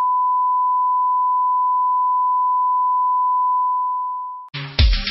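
Steady bars-and-tone line-up test tone, one unwavering pure beep, that cuts off about four and a half seconds in as music with guitar and drums starts.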